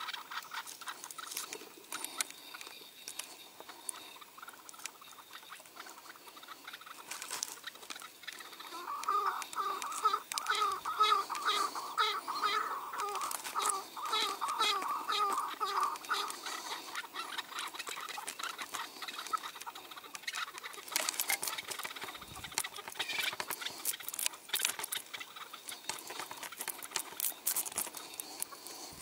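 Chukar partridge calling: a fast run of repeated clucking notes for about seven seconds, starting about eight and a half seconds in. Fainter calls and scattered sharp clicks come before and after, with the clicks thickening in the last third.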